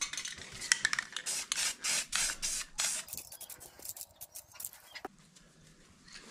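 Rust-Oleum aerosol spray-paint can spraying in a quick series of short hisses for about three seconds, then fewer, fainter bursts. A single sharp click comes about five seconds in.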